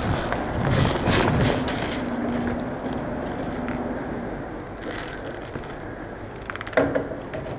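Crunching and rustling, the sound of a headcam wearer moving over rough ground. About seven seconds in there is a short, sharp cluster of rapid clicks.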